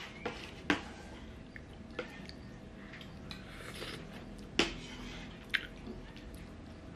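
A spoon clicking and scraping against a ceramic bowl while someone eats, with soft eating sounds in between. There are a handful of sharp clicks, the loudest under a second in and again about four and a half seconds in.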